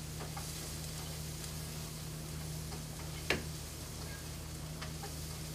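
Steady low electrical hum with a faint hiss, and a few light clicks, the sharpest a little past three seconds in.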